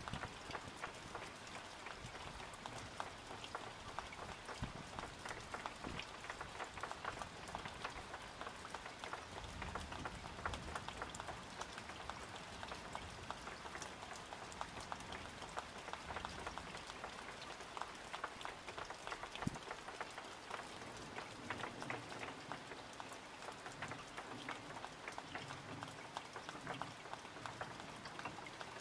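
Summer rain falling steadily, a dense patter of raindrops on surfaces all around. A soft low rumble comes and goes in the middle and again near the end.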